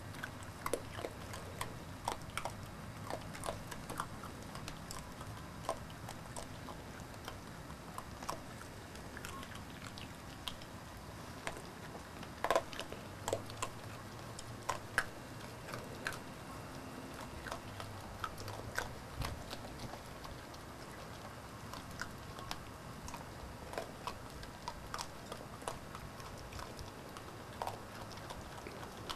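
A buck deer eating grain scattered on the ground: irregular crunching bites and clicks, coming thickest about halfway through.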